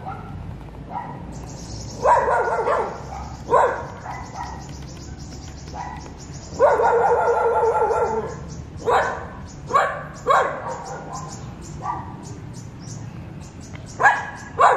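Dog barking repeatedly, with two longer drawn-out bouts of calling, the longest in the middle, and single sharp barks between them.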